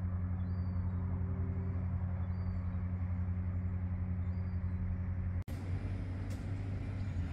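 A diesel train engine runs steadily with a low, fast-pulsing hum. About five and a half seconds in the sound cuts out for an instant, and a rougher, broader rumble follows.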